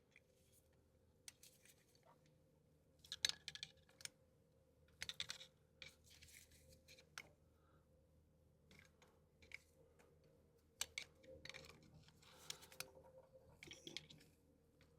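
Faint, scattered clicks and scrapes of hand work on a motorcycle brake caliper as the pistons are pushed back against the old pads.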